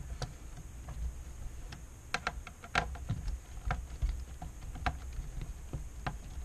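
Irregular light clicks and taps of a screwdriver and hands against the metal frame of an LCD panel as it is aligned and screwed into its chassis.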